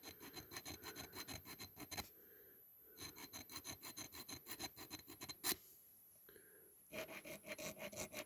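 A hand file rasping on the end of a diecast toy car's axle to free its wheels, in quick even strokes of about five a second, in three runs with short pauses. A single sharp click about five and a half seconds in.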